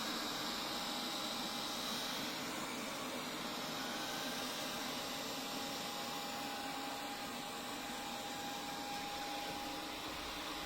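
Robot vacuum cleaner running: a steady whir with a thin, steady whine through it.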